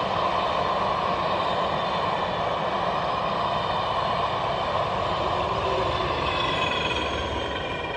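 Passenger train hauled by LMS Black Five steam locomotive 45231 rolling past, its coaches running steadily on the rails. A thin high squeal comes in near the end, and the sound fades as the tail of the train goes by.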